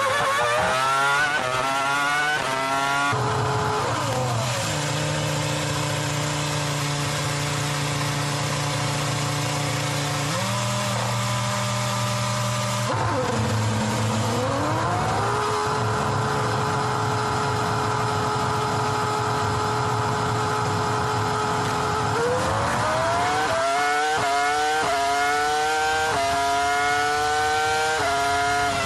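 Onboard sound of 3.0-litre V10 Formula One engines, first from the Renault and then from the Ferrari F2004. It opens with hard acceleration and quick upshifts. For most of the stretch the engine holds a long steady note while the car runs down the pit lane at the speed limiter, dipping briefly and then pulling up again. Near the end it accelerates through the gears again with rapid upshifts.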